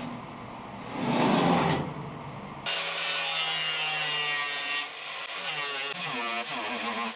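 A short loud rasping burst, then about two and a half seconds in a power tool starts suddenly and runs on, its pitch wavering up and down as it cuts into the lathe cabinet's wall.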